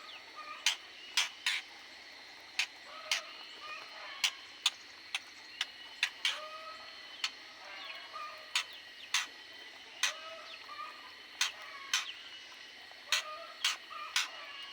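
Aviary birds giving short chirping calls, mixed with sharp irregular clicks about once or twice a second, over a faint steady high-pitched whine.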